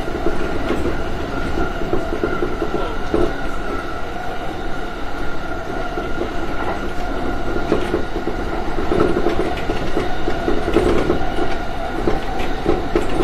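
Interior running noise of a JR East E235 series 1000 electric train between stations: a steady rumble of wheels on rail carrying a hum of several held tones, with light clicks over rail joints.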